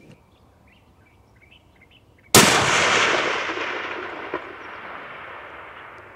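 A single shot from a custom 7mm Winchester Short Magnum rifle a little over two seconds in: a sharp crack followed by a long echo that fades away over about four seconds.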